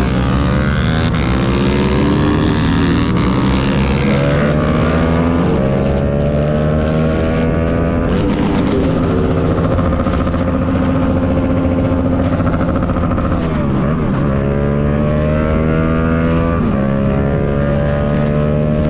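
Yamaha MT-07's 689 cc parallel-twin engine running under way, heard from the bike. Its pitch falls for the first few seconds, then holds and climbs, dips and rises again about two-thirds of the way through, and falls off near the end as the rider rolls off the throttle.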